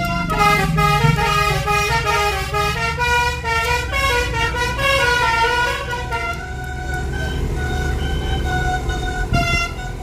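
Basuri bus telolet multi-trumpet horn played from a keyboard as a fast melody of changing notes for about six seconds, then holding steadier, quieter tones, with a short louder note near the end. Heard from inside the car, over a low engine and road rumble.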